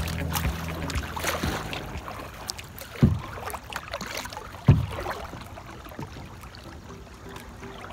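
Kayak paddling on calm water: paddle blades dipping, splashing and dripping, with two low thumps about a second and a half apart near the middle.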